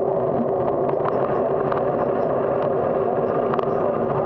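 Steady rolling noise of a bicycle ride picked up by a handlebar-mounted camera: tyre and wind noise, with a few faint ticks scattered through.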